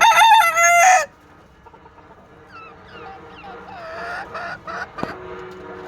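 A large country rooster crowing, loud, its call ending about a second in.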